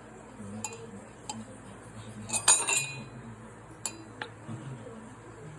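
Utensils clinking against dishes or glassware: a few separate light clinks, then a louder quick cluster of ringing clinks about two and a half seconds in.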